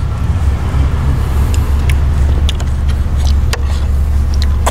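Car engine idling, a steady low rumble heard from inside the cabin, with scattered small clicks from a spoon on the tray and eating.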